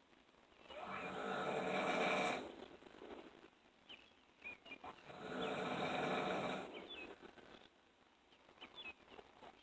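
A sleeping person snoring deeply: two long, rattling snores on the in-breath, each about two seconds long and about four seconds apart, with quieter breathing between them.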